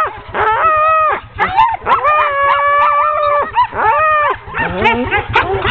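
A hooked-up team of Siberian husky sled dogs howling, screaming and yelping all at once in pre-run excitement, eager to go. Long held howls overlap with many short rising-and-falling yelps.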